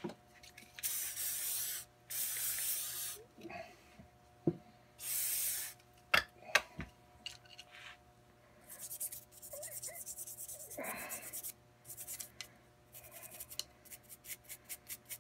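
Three short hisses of an aerosol spray can, each about a second long, a few sharp metal clicks from handling the 9mm AR blowback bolt, then from about nine seconds in a stiff brush scrubbing the bolt in quick repeated strokes.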